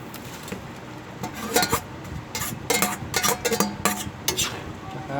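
A metal utensil clanking and scraping in a cooking pan in a quick run of about a dozen clatters, starting about a second in, as cabbage goes into the pan.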